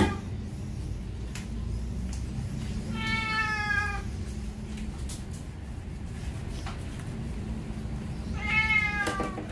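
Wet Maine Coon cat meowing in protest while being shampooed: two long meows that fall slightly in pitch, one about three seconds in and one near the end.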